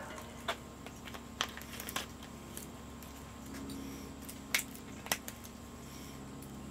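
About six sharp clicks and taps, scattered and mostly in the first half, as a plastic seasoning bottle and its cap are handled and twisted open in gloved hands.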